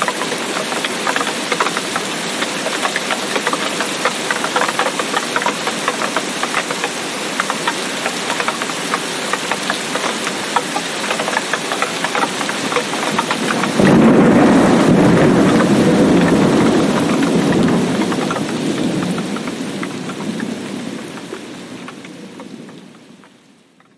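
Heavy tropical rainforest rain falling steadily, dense with fine drop ticks. About two-thirds of the way through, a loud low roll of thunder breaks in suddenly, rumbles, and slowly dies away as the whole sound fades out to silence.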